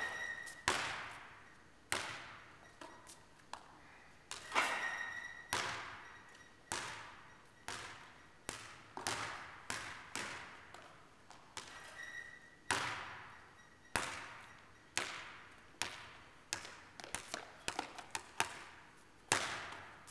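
A basketball bouncing on the court floor and banging off the backboard and rim, each knock echoing around the large empty gym, with a few short squeaks.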